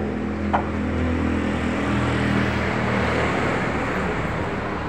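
A motor vehicle going by on the road, its engine and tyre noise swelling through the middle and easing off, over a steady low hum. A single sharp click just after the start.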